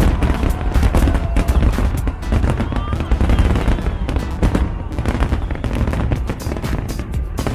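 Aerial fireworks going off in rapid, dense volleys: a continuous run of sharp cracks and bangs over a deep rumble.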